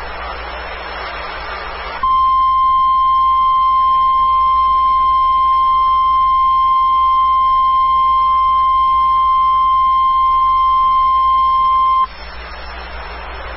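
NOAA Weather Radio 1050 Hz warning alarm tone, a single steady tone that starts about two seconds in, holds for about ten seconds and cuts off suddenly. Radio hiss is heard before and after it. The tone is being sent as the weekly test of the weather radio alarm.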